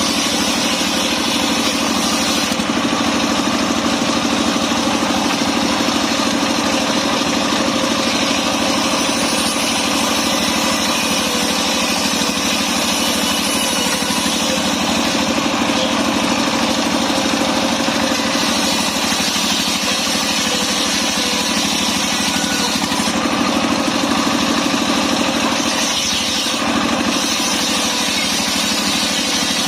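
Engine of a portable circular sawmill running steadily at a constant speed.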